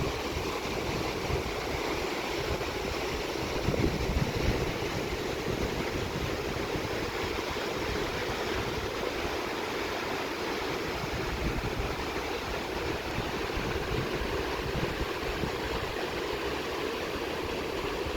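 Swollen, fast-flowing stream rushing steadily, with irregular low buffeting from wind on the microphone.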